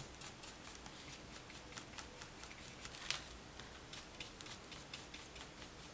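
Quiet, scratchy ticking of a watercolour paintbrush dabbing and stroking on crepe paper petals, with one slightly louder tap about three seconds in.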